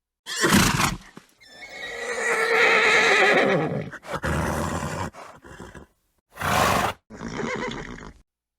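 A horse neighing: one long whinny of about two and a half seconds with a wavering, falling pitch, set among several shorter, rougher horse calls, separated by sudden dead-silent gaps.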